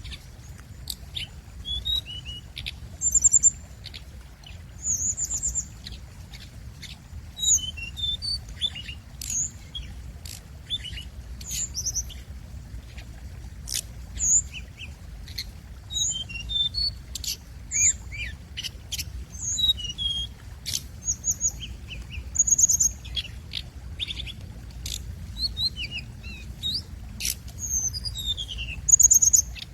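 A hồng hạnh songbird singing a lure song: a rapid, varied string of short high chirps, whistled notes and fast trills in phrases a second or two apart, over a faint steady low rumble.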